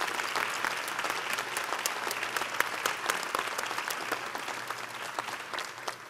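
Audience applauding, a dense patter of many hands clapping that fades near the end.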